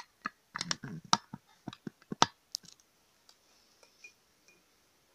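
A quick run of sharp clicks and light knocks over the first two seconds or so, then a few faint ones: a spoon knocking against a glass jar as it is handled on a countertop.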